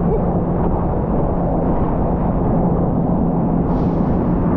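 Steady rush of wind buffeting the microphone and water churning under a towed inflatable tube as it skims across a motorboat's wake, with a faint steady hum underneath.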